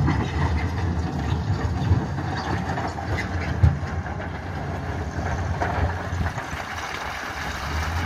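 Diesel engine of a heavy construction machine running steadily at low revs, with one sharp knock a little over three and a half seconds in.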